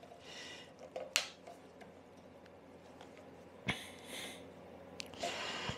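A few light clicks and knocks from a heat-softened plastic Lambretta drip tray being pushed into place by hand, with short breaths in between.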